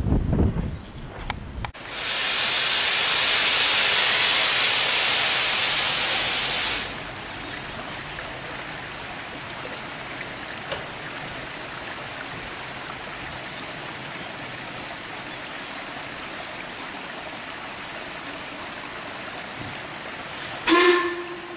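Narrow-gauge steam locomotive hissing loudly as it lets off steam for about five seconds, the hiss cutting off sharply; then a stream running steadily, and a short, sharp blast of the locomotive's steam whistle near the end.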